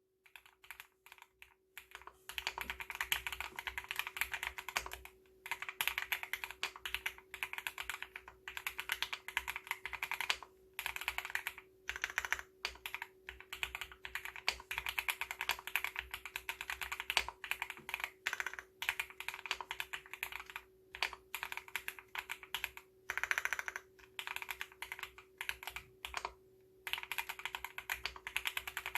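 Owlab Mr. Suit R3 mechanical keyboard with Gateron Cap Gold V2 switches being typed on: fast, continuous keystrokes broken by several short pauses.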